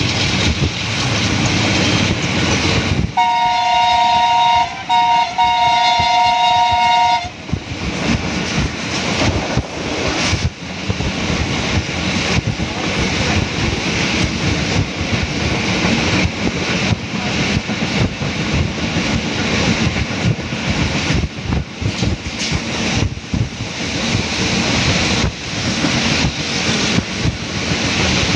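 Diesel locomotive horn sounding a two-note chord about three seconds in, held for about four seconds with a brief break in the middle, over the steady running noise of a moving passenger train.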